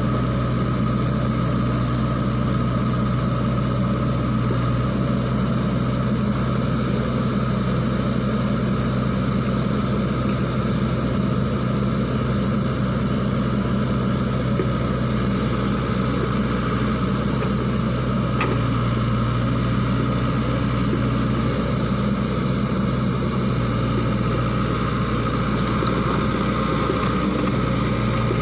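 Sany SY55C mini excavator's diesel engine running steadily while the machine digs.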